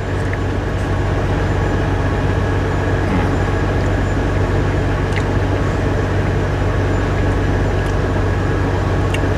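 Idling semi-truck diesel engine making a steady, low, even drone that does not change. A few faint clicks sound over it.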